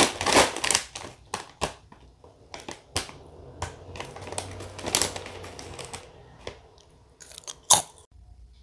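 Irregular crinkling and crackling clicks, dense for the first second or so and then sparser, with one loud sharp crackle near the end.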